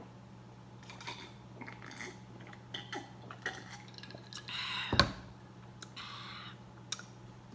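Chopsticks clicking and clinking against a bowl while picking up ramen noodles: scattered light taps, with a brief scrape ending in a louder clack about five seconds in.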